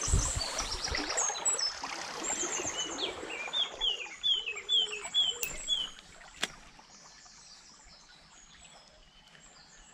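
A small bird singing a run of short, falling notes, about three a second, over the trickle of a shallow stream. Thuds and rustling from wading through branches come in the first second or so, and there is a single sharp click about six and a half seconds in.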